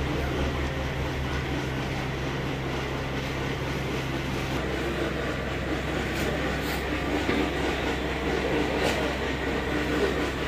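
Motor-driven rotary chekku oil presses running steadily while crushing groundnuts for oil, a continuous mechanical hum. A few short sharp clicks come in the second half.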